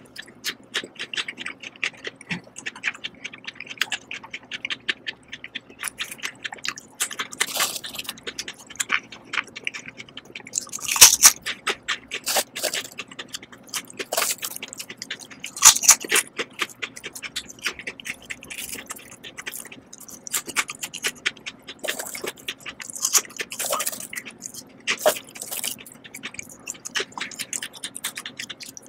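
Close-up crunching and chewing of Lay's Texas BBQ potato chips: a dense run of crisp crackles, with louder crunches about eleven and sixteen seconds in. Between bites, chips rustle and scrape on the board as they are picked up.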